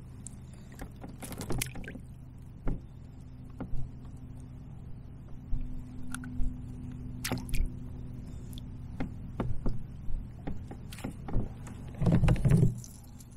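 Handling noise of a largemouth bass being unhooked in a kayak: scattered short clicks and knocks of lure, hooks and gear, with a louder burst of rustling and knocking near the end as the fish is lifted out. A steady low hum runs underneath.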